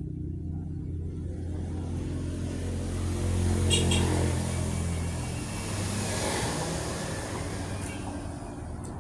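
A motor vehicle driving past, its engine hum and road noise growing to a peak about four seconds in and then fading away.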